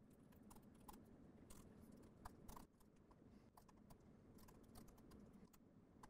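Faint, irregular keystrokes of typing on a computer keyboard, a scattered handful of soft clicks against near silence.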